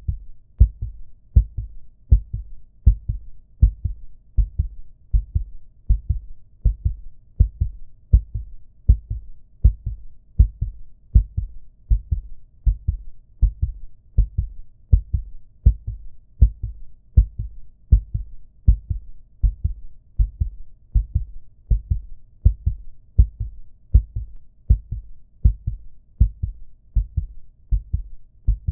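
Recorded human heartbeat sound effect, looped: steady paired lub-dub thumps, deep and muffled, repeating evenly a little over once a second.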